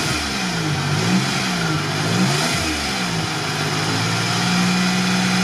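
Toyota 4Runner engine revved up and down three times, then held at steady high revs, just after restarting from being drowned in water.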